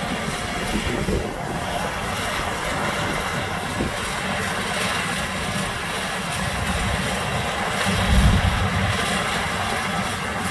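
Kubota DC70 rice combine harvester running steadily as it cuts and threshes rice, its diesel engine and machinery making a continuous drone, with a brief low surge about eight seconds in.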